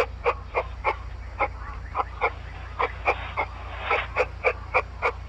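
An animal calling in a long run of short, sharp calls, about three a second.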